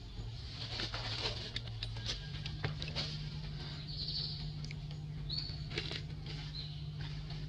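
Macaque handling and chewing food: scattered sharp clicks and rustles, most of them in the first three seconds, with a few short high chirps and a steady low hum behind.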